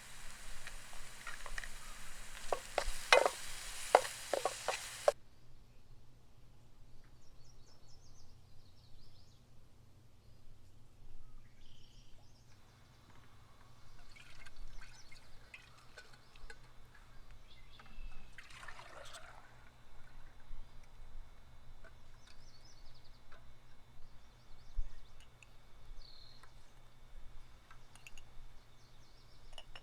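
Liquid being poured into a cooking pot, a steady hiss with several sharp clinks, for about the first five seconds. After that come quieter, scattered small handling and cooking noises.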